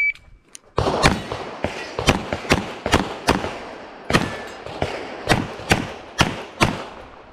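The tail of a shot timer's start beep, then a semi-automatic pistol firing a string of about a dozen shots, roughly two a second with a short pause midway, beginning just under a second in. It is a timed IPSC stage run.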